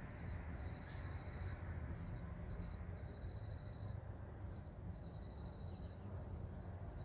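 Rural outdoor ambience: a high, pulsing trill comes in stretches of about a second, every second or two, with a few short high chirps, over a low steady rumble.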